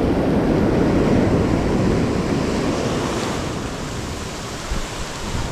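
Ocean surf washing onto the beach, a wave surge that swells over the first couple of seconds and then eases, with wind buffeting the microphone.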